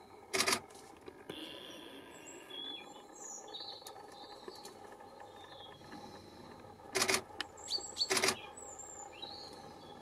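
Great spotted woodpecker pecking at tree bark in short bursts of rapid taps: once near the start and twice near the end, about a second apart. Faint chirps of small birds sound in between.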